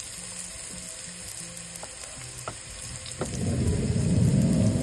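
Diced onion frying in oil in a pan: a steady sizzle with a few light pops. About three seconds in, a low rumble comes in and grows louder.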